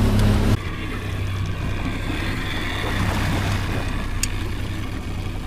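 Boat's Mercury outboard running under way, with wind and water noise, for about half a second. Then a quieter, steady low outboard hum with a faint hiss, and a single sharp click about four seconds in.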